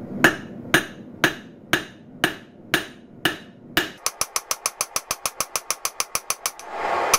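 Hand hammer striking a red-hot 1080 high-carbon steel blade on an anvil to thin it out: about eight ringing blows two a second, then from about four seconds in a quicker run of lighter blows, roughly seven a second.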